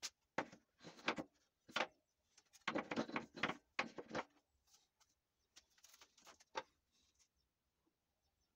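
Handling noise from a hand saw and tools on a plywood workbench: several clusters of short knocks and scrapes in the first half, a few fainter taps a little later, then quiet near the end.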